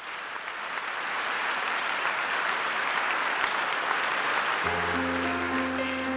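Audience applauding, the clapping swelling in the first second and then holding steady. About four and a half seconds in, the band comes in with held low notes under the applause.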